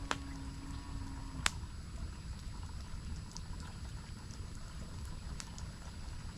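Steady rush of a waterfall, with a cow's long low moo that ends about one and a half seconds in. A few sharp pops from a campfire come near the start and again later.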